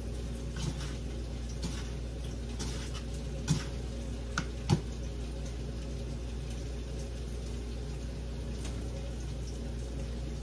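Tilapia pieces frying in a deep fryer's hot oil: a steady sizzle with small pops over a constant low hum. A few light knocks come near the middle.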